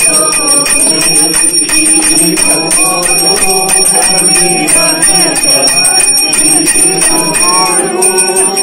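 Hand-held puja bell rung continuously during an aarti, a steady high ringing that never stops, while a group of voices sings the aarti.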